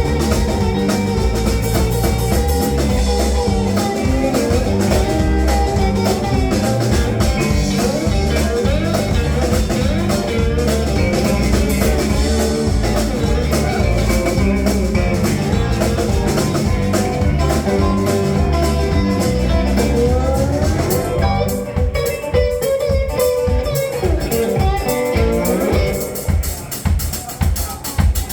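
Live electric blues band playing an instrumental break, with electric guitar lines over bass and drums. Past two-thirds of the way the bass drops away under a held guitar tone, and near the end the drum kit plays alone with sharp snare and rim hits.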